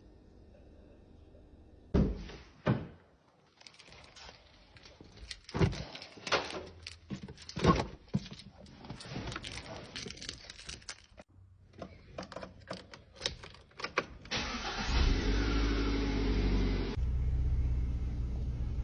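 A series of thumps and clicks, then a car engine is started about three-quarters of the way in and settles into a steady idle.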